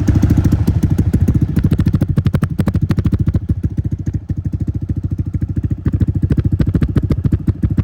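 CX300C motorcycle idling with both dB killers removed from its exhaust, so the open exhaust beats out a steady, rapid stream of even pulses as the engine warms up.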